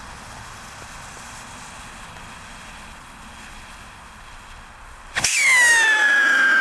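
Faint hiss of a burning rocket fuse, then about five seconds in a loud, shrill whistle as a howling firework rocket (Pyrostar 'Brüllende Schwiegermutter') launches, its pitch sliding steadily down as it climbs.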